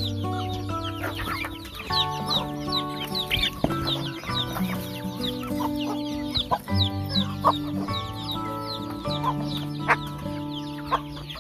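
Chickens clucking, with many short high calls in quick succession, over background music with held notes and a bass line.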